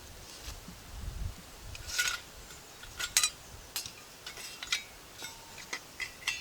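Metal parts of a Forfar camping stove clinking and knocking together as they are handled and fitted: a string of irregular sharp metallic knocks, some ringing briefly.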